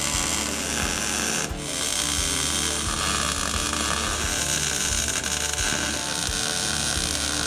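MIG welder crackling as it lays plug welds in sheet-steel floor pans, with a short break about a second and a half in. Background music plays underneath.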